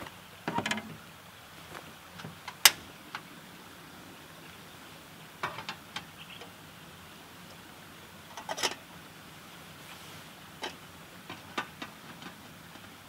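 A portable gas cassette stove and a small metal kettle being handled on a folding aluminium table. The stove clunks down, then a single sharp click comes as the burner is lit. Later there are metallic clinks and knocks as the kettle lid is put on and the kettle is adjusted on the grate.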